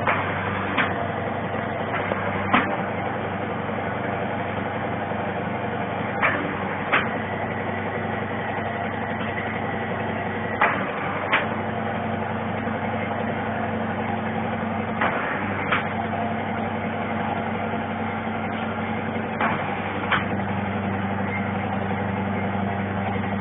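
Eye-drop bottle cap sealing machine running: a steady motor hum with sharp mechanical clacks, mostly in pairs, recurring about every four seconds with each sealing cycle.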